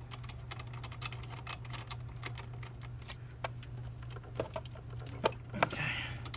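Irregular light metallic clicks and taps as the rear fuel-tank mounting bolt of a Honda Monkey is started in its threads and turned, over a steady low hum.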